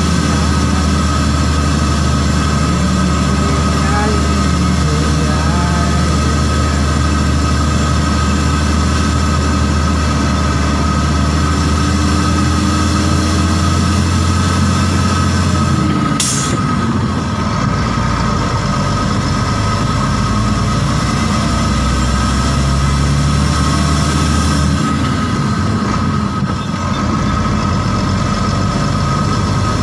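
Tractor-trailer truck's diesel engine running on the road, a steady low drone with steady whining tones above it. About halfway through, the low drone drops in pitch, with a short click just before.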